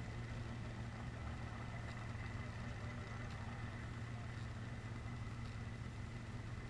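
Steady low drone of an idling engine, unchanging throughout, with a faint steady high whine above it.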